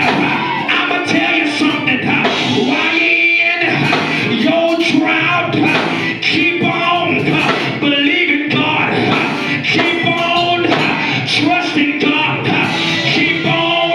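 Gospel church music with singing over a steady beat: a praise break.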